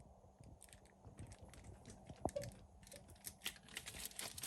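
Faint crinkling and light clicks of a plastic-covered frozen meal container being handled, getting busier near the end.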